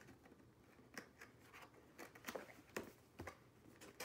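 Fingers prying at the flap of a small cardboard box, a few short, faint scratches and clicks of cardboard.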